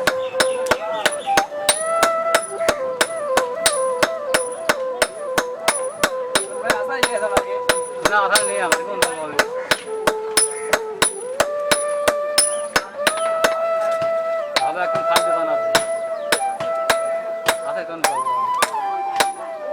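A blacksmith's hammer striking hot iron on an anvil in a steady rhythm, roughly two and a half blows a second, each blow ringing briefly, while forging a hand weeder blade. A sung or played melody runs along under the blows.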